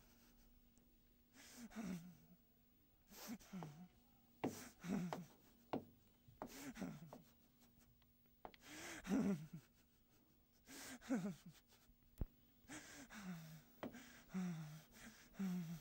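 A young woman's heavy, voiced sighing breaths, repeated every one to two seconds, each one falling in pitch.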